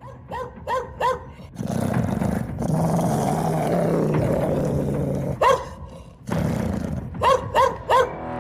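Dog barking in short sharp barks: three quick barks, then a long low growl of about four seconds, a single bark, another short growl, and three more quick barks near the end.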